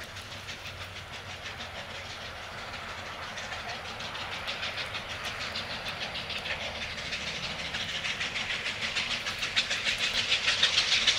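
Steam locomotive working toward the listener, its exhaust chuffing in a quick, even beat that grows steadily louder as it nears.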